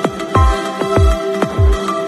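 Electronic music with a deep kick drum that drops in pitch on every hit, several hits a second, over steady sustained synth tones.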